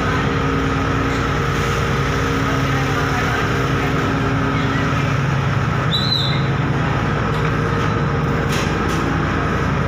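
Steady, even drone of engines running on a ferry's enclosed vehicle deck, with a short high chirp about six seconds in.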